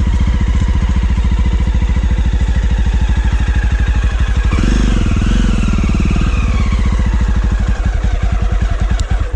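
Motorcycle engine running with a fast, even low beat, revving up briefly about halfway through, then cutting off suddenly at the end.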